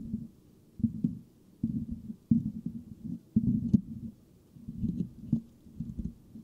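Fingertips scratching the mesh grille of a Blue Yeti microphone in short bouts of about half a second with brief pauses between, the scratches sounding deep and low-pitched, with an occasional sharper tick.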